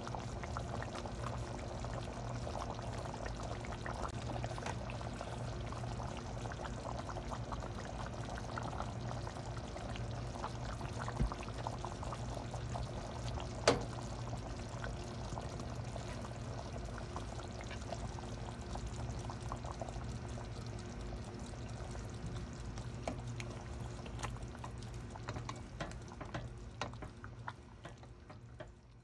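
A pan of chicken-and-pineapple stew simmering, a steady dense bubbling and crackling over a constant low hum. There is a sharp clink about 14 seconds in, and the sound fades out near the end.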